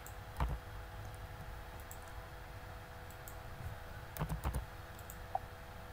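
Faint clicks of computer keys: one about half a second in and a quick run of several around four seconds, over a low steady hum.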